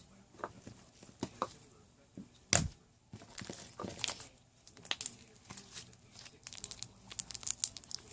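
Slime being squished and stretched by hand, giving irregular sticky crackles and small pops, with one louder knock about two and a half seconds in.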